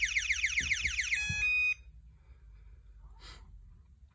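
Intruder alarm sounder on a Texecom Premier Elite panel going off in rapid falling sweeps, about six a second, as the system is powered down. It cuts off about a second in, leaving a short steady beep and then faint clicks.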